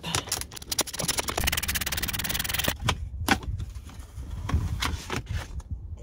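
Quarter-inch ratchet clicking rapidly as it backs out a T25 Torx screw, then scattered clicks and knocks as the plastic steering-column shroud is worked off.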